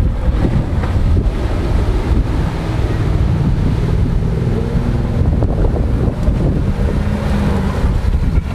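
Land Rover Discovery 1's 3.9-litre petrol V8 running under steady throttle as it crawls through a muddy water-filled ditch, with heavy wind buffeting the microphone over it.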